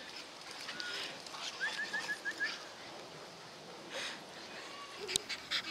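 A bird calling a quick run of about six short rising notes about two seconds in, over a steady hiss of light rain.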